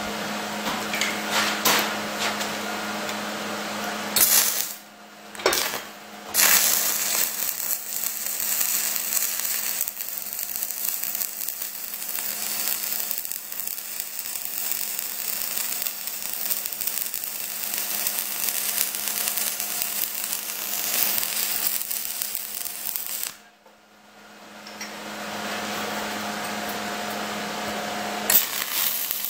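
Stick welding with an Esab 215ic inverter welder and 3/32 in electrodes: a steady crackling, hissing arc. It breaks off briefly twice about five seconds in and for a second or two around 23 seconds in, then strikes again.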